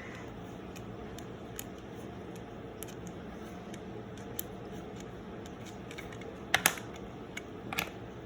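Small mechanical clicks from handling a Canon F-1 SLR body and working its controls, scattered and faint, with a sharper cluster of clicks about six and a half seconds in and another near the end.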